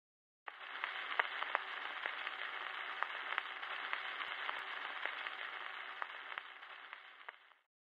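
A steady crackling hiss of static with a thin, narrow sound like an old radio, scattered with sharp clicks. It starts about half a second in and fades out shortly before the end.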